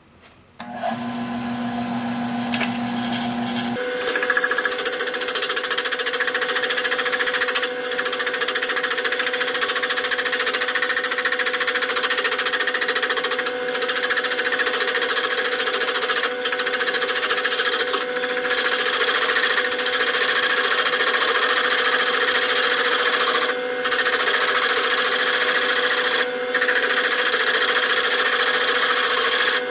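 Nova 16/24 wood lathe starting up under a second in, its motor running with a steady whine; from about four seconds a turning tool cuts into the spinning oak blank with a loud hiss, lifted off the wood briefly about six times, while cutting a tenon.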